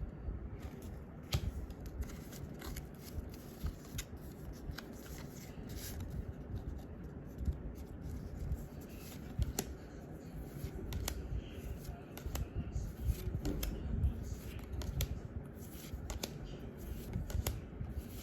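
Pokémon trading cards being handled and flipped through, cards sliding over one another with scattered sharp clicks and snaps at irregular intervals.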